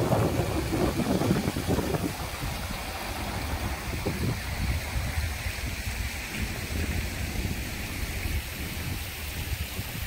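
Park fountains splashing into a pool for about the first two seconds, giving way to a steady low rumble of road traffic, with double-decker buses passing.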